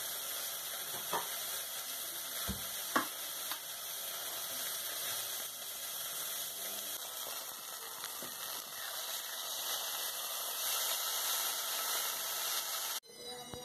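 Beef steak frying in a pan: a steady sizzling hiss with a few sharp pops in the first few seconds. The sizzle cuts off abruptly near the end.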